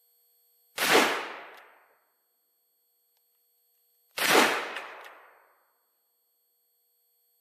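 Two shots from an 1861 Remington-Elliot Old Model Army .44 cap-and-ball percussion revolver, about three and a half seconds apart, each followed by an echo that dies away over about a second.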